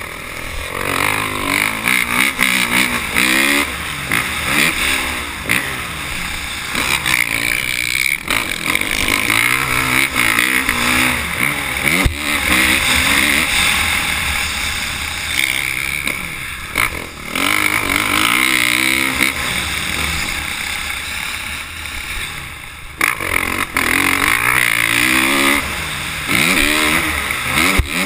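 Dirt bike engine heard from the bike itself, revving up and down as the rider works the throttle through corners and straights. A few times the revs drop off briefly, as the throttle closes, before climbing again.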